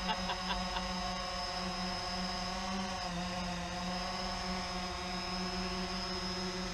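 Small quadcopter drone hovering, its four propellers giving a steady buzzing whine, the pitch dipping briefly about three seconds in as the motors adjust. A few quick ticks in the first second.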